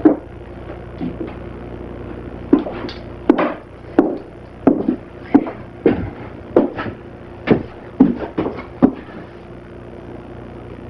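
A steady electrical hum with an uneven run of about a dozen sharp clacks, starting a couple of seconds in and stopping about a second before the end, roughly two a second.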